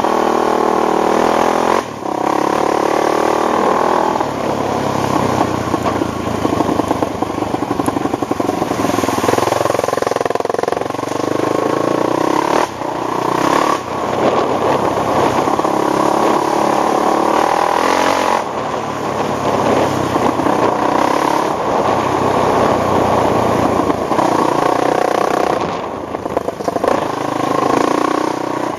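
ATV engine running under throttle as the quad is ridden, its pitch rising and falling, with the throttle easing off briefly about four times.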